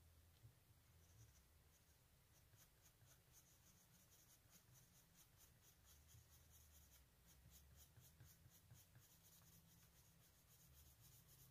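Faint scratching of a Derwent coloured pencil shading on drawing paper, in quick, evenly repeated back-and-forth strokes: blending a smooth colour transition over the earlier layers.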